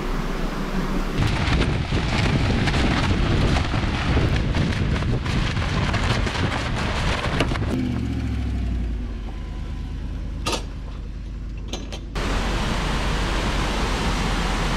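Rapid whitewater of a rocky mountain creek rushing loudly and steadily in the later part. It follows a long stretch of loud, steady rushing noise, then a quieter break with a low hum that falls in pitch and a single sharp click.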